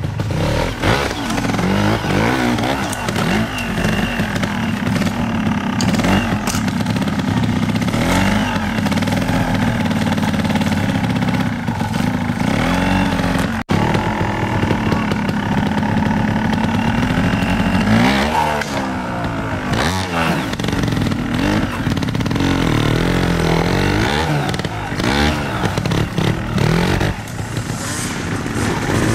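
Trial motorcycle engine blipped in short bursts of revs that rise and fall again and again, with low running between blips, as the bike is ridden slowly over rocks.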